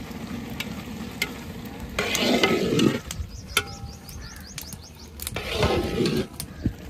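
A long-handled metal ladle stirring a large aluminium pot of cooked sweet rice: two scraping strokes through the rice, about three seconds apart, each with a brief metallic ring against the pot.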